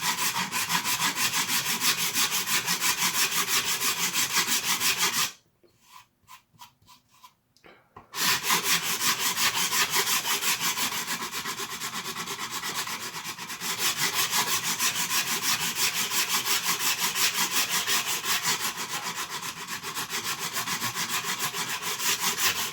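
Hand abrasive strokes on hard plastic: a plastic shell being rubbed down flush with a 3D-printed guide. The back-and-forth strokes run about three or four a second, stop for about three seconds some five seconds in with only a few faint taps, then carry on.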